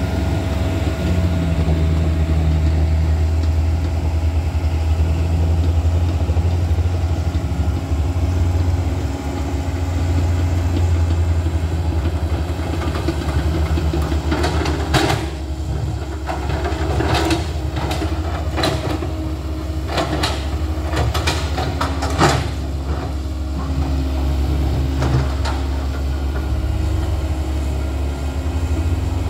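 Komatsu crawler excavator's diesel engine running steadily while it digs. Around the middle, a run of sharp clanks and scrapes from the steel bucket striking and dragging on rock, the loudest a few seconds later.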